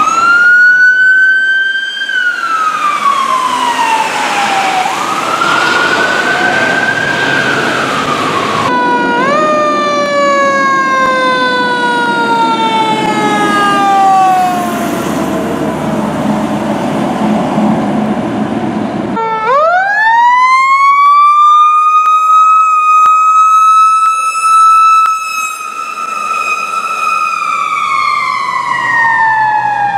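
Fire truck sirens wailing in long sweeps, rising and falling in pitch over traffic noise. The sound breaks off abruptly twice as one siren gives way to another. The last siren rises quickly a little past the middle, holds its pitch, then falls slowly near the end.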